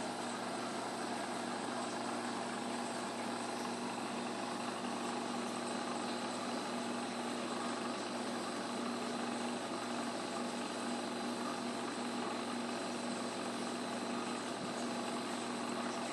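Steady hum and whir of a running reef aquarium's pumps and equipment: one constant hum with a fainter high whine over an even wash of noise, unchanging throughout.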